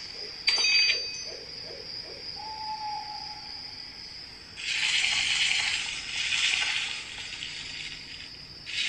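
Magical sound effects from a phone sorting-quiz app. A high ringing tone runs under a short chime about half a second in and a brief hoot-like tone near the middle. Then two shimmering whooshes follow as the phone is tilted to pick Stars.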